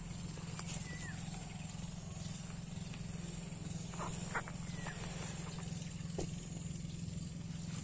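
Rural field ambience: a steady high-pitched buzz and a low steady hum, with two short gliding chirps and a few brief clicks of handling around the middle.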